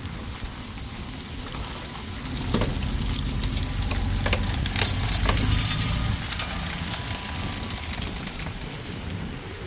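A vehicle engine running with a low, steady rumble, with a few sharp clicks and a high hiss lasting about a second and a half that begins about five seconds in.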